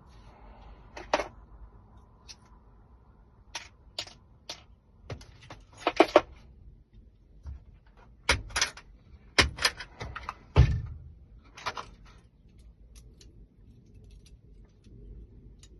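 Irregular sharp metallic clicks and knocks from keys and lock parts being handled during a lock rekey, with one duller thud about two thirds of the way through.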